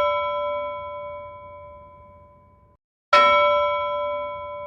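Two identical bell-like metallic dings, about three seconds apart. Each is struck sharply and rings out, fading slowly.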